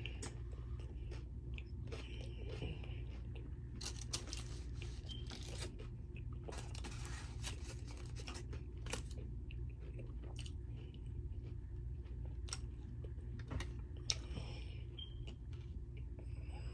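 A person chewing and crunching through a carne asada taco close to the microphone, with scattered crunches, clicks and rustles over a steady low room hum.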